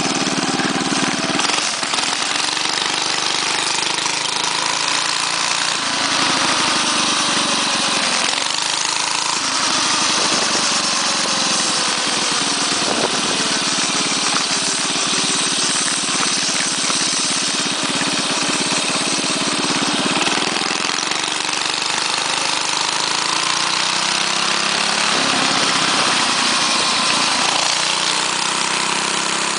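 6.5 hp Tecumseh OHV single-cylinder engine on a mini bike, running through a straight pipe while the bike is ridden, its pitch rising and falling several times with the throttle.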